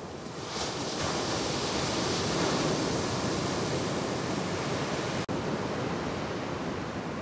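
Shorebreak waves crashing and whitewater rushing, growing louder about a second in, with a brief break in the sound a little past five seconds at a cut in the footage.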